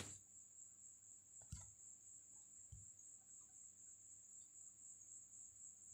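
Near silence with a faint, steady, high-pitched cricket trill, and one soft low thump about a second and a half in.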